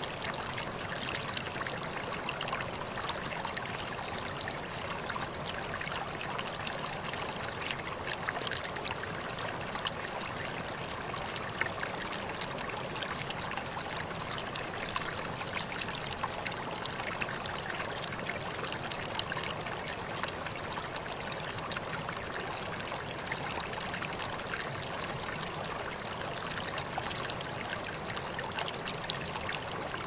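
Running water flowing steadily: an even rush dotted with many small splashes and trickles.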